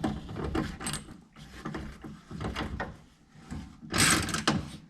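Hands working a truck side mirror into its mount on the door: plastic and metal parts knocking, clicking and scraping as they are pushed into place, with a louder, longer scrape about four seconds in.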